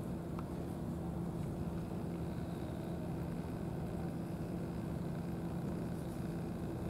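A steady low mechanical hum at one unchanging pitch, over a faint noisy background.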